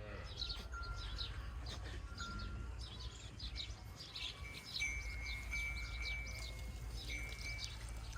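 Birds chirping and calling: many short high chirps and a few held whistled notes, over a steady low rumble.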